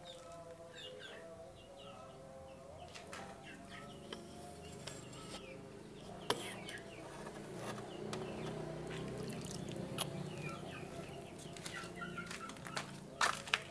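Chickens clucking, with small birds chirping and a few sharp knocks, the loudest near the end.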